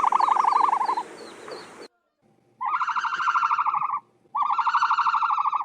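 A bird gives three rapidly pulsing, warbling calls, each about a second or a little more long, with short breaks between them.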